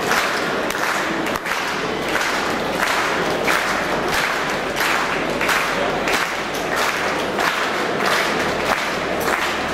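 Audience clapping in rhythm, the claps swelling about once a second.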